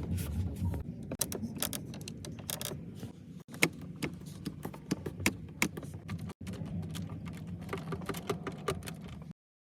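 Interior trim of a Mercedes-AMG S 63 ticking and creaking in many short, irregular clicks over the low rumble of the car on the move: the cabin's squeaks and rattles. The sound cuts off suddenly near the end.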